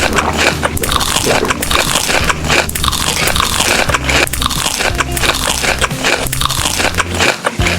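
Close-miked crunchy eating: repeated crisp biting and chewing crunches in quick succession, over background music.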